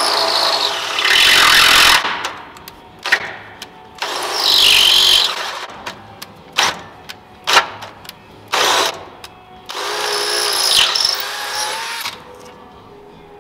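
Makita 18V cordless drill boring through thick steel plate in three runs of one to two seconds, with short trigger blips between them. The holes are being opened up in steps from a small pilot bit to 3/8 inch.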